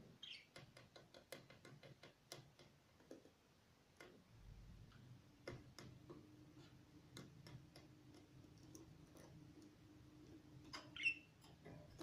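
Small caged parrots: a run of light, quick clicks and ticks, thickest in the first few seconds, with a short high chirp at the start and a louder chirping call near the end. A faint steady low hum sets in about four seconds in.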